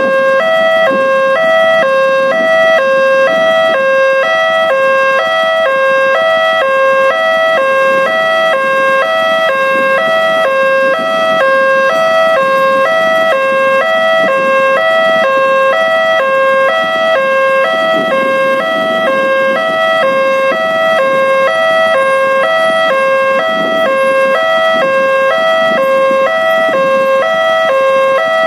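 Railway level-crossing alarm sounding from the crossing signal's loudspeaker: a fast electronic warning tone swapping steadily back and forth between two pitches, the crossing's normal fast tone, sounding while the barrier is down. A low rumble of waiting traffic lies underneath.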